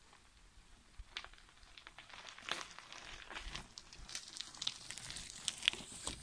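Mountain bike tyres rolling over dry pine needles and loose dirt, a scatter of small crunches and crackles that grows louder as the bike comes up and passes close by about four seconds in.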